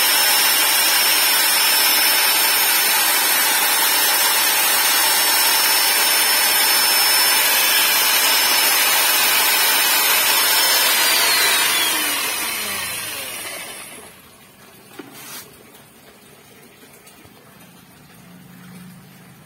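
Corded electric drill with a mixing rod running steadily as it churns thick green liquid soap in a plastic bucket. About eleven seconds in it is switched off and its whine falls as it spins down. A light knock follows a few seconds later.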